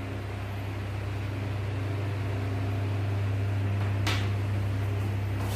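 Steady low electrical or fan hum filling the room. Near the end come two brief scratches of a marker pen on a whiteboard.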